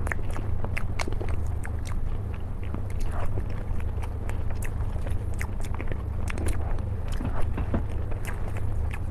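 Close-up eating sounds of chocolate-coated mousse cake: a fork clicking and scraping as it cuts through the chocolate shell on a cardboard cake base, then biting and chewing near the end. Many small crisp clicks over a steady low hum.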